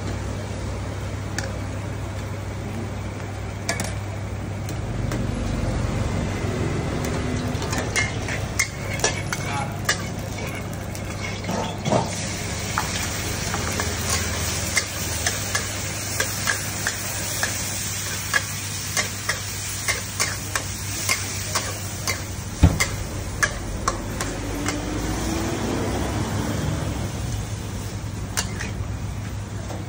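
Squid and shrimp sizzling in a hot wok while a metal spatula scrapes and knocks against the wok in many sharp clicks as it stir-fries. The sizzle grows louder partway through, as sauce goes in.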